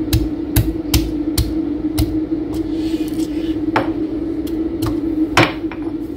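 Stone pestle pounding whole shallots, garlic and curry leaves in a stone mortar: a run of sharp, irregular knocks, about two a second at first and then sparser, the hardest one near the end. A steady low hum runs underneath.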